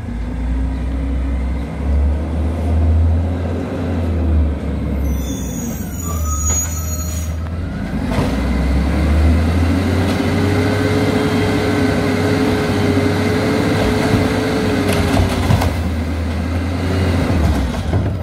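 Peterbilt 320 LNG garbage truck running as it pulls up, with a brief high squeal about five seconds in. From about ten seconds in the engine runs louder and the Amrep automated side loader arm's hydraulics whine steadily for about five seconds while the arm lifts and dumps a recycling cart.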